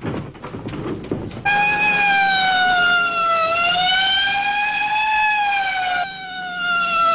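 A few quick thumps, then a police car's siren cuts in abruptly about a second and a half in. It wails with its pitch slowly rising and falling in long sweeps, and dips briefly near the end.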